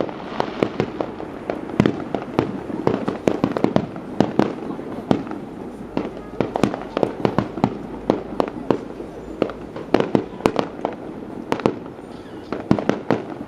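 Aerial fireworks going off in a rapid, irregular run of sharp bangs, several a second, with no break.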